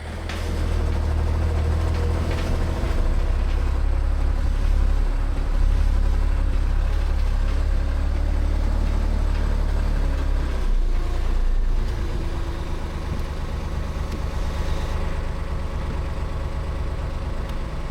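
Site dumper's diesel engine running with a steady low rumble while it carries its load, easing off slightly about twelve seconds in.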